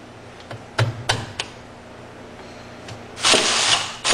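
Three knocks as a glow-plug igniter is pushed onto the burnt HPI Savage 25's nitro engine, then about three seconds in a loud noisy burst of just under a second as the engine is cranked over to start it; the engine starts running right at the end.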